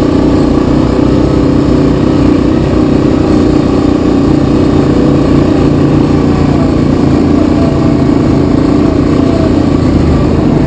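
Yamaha Kodiak 700 ATV's single-cylinder four-stroke engine running steadily while riding, loud and even with little change in pitch.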